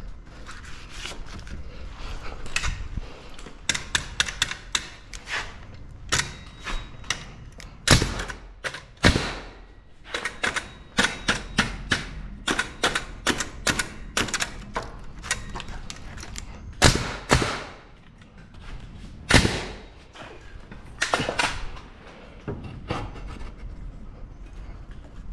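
Makita pneumatic framing nailer driving nails through wood blocking into studs: a string of sharp shots, several of them loud, amid many lighter knocks and taps of the lumber being pushed into place.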